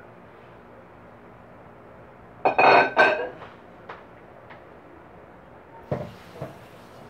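Kitchenware clattering on a tiled counter as a cut-glass serving plate is set down and a stainless steel mixing bowl is lifted. A loud, briefly ringing clatter comes about two and a half seconds in, then a few small clicks and two lighter knocks near the end.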